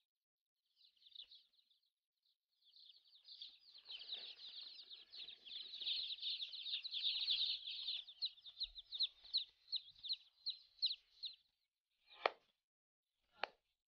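A crowd of day-old chicks peeping: a dense chorus of high, rapid chirps that thins out to separate peeps. Two short sharp sounds come near the end.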